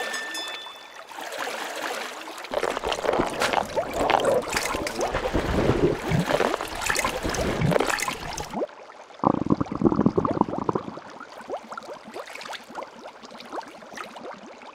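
Bubbling water sound effects. They are loud from about two and a half seconds in and stop suddenly near nine seconds. A second short burst follows, then fainter bubbling.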